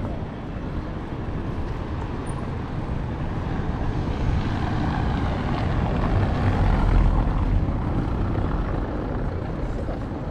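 A small van driving past close by on a cobblestone square, its tyres rumbling over the stones; the rumble swells to its loudest about seven seconds in and then fades.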